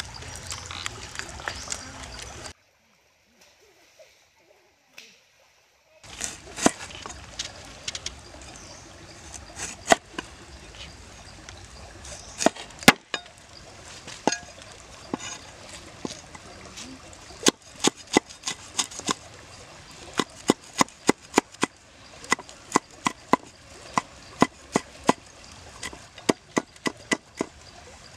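A wooden pestle pounding and grinding chili paste in a coconut-shell bowl, then a brief gap of near silence. After that comes a cleaver knocking on a round wooden chopping board: scattered knocks at first, then a steady chopping rhythm of about three strokes a second through garlic, shallots and red chilies.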